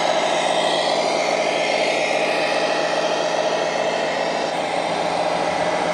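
Radio-controlled model vehicle running, a steady mechanical hum at an even level.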